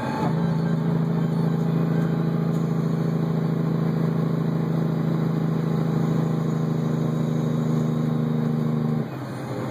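Semi truck's diesel engine running steadily at one pitch while the truck cruises, heard from inside the cab. The steady engine note cuts out about nine seconds in and the sound drops.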